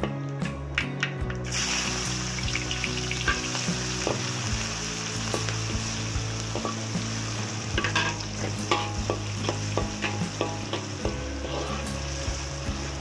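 Sliced red onions sizzling in hot oil in a steel wok. The sizzle jumps up suddenly about one and a half seconds in, as the onions hit the oil, and a metal spatula clinks against the pan while stirring them, most around the middle.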